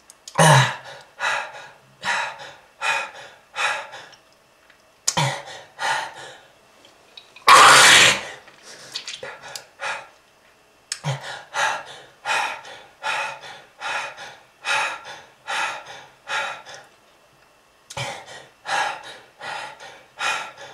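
A smoker's coughing fit: runs of short, rapid coughs, two or three a second, broken by brief pauses, with one long harsh hack about eight seconds in.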